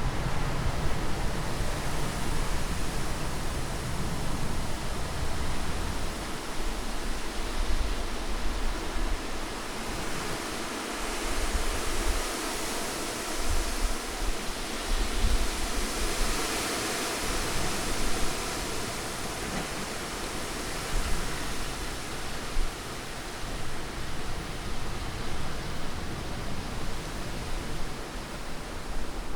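Steady rushing wind, an even hiss that swells for a few seconds in the middle and eases again, over an uneven low rumble.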